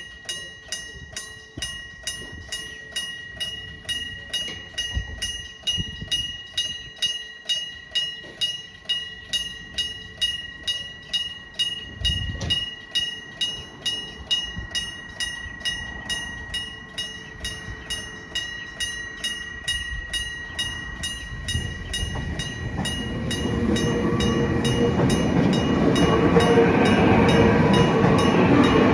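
Electric bell of an old-style railway level crossing, striking at an even rate of about two strokes a second with a ringing tone. About two-thirds of the way through, a train approaches and passes, its rumble building until it is louder than the bell.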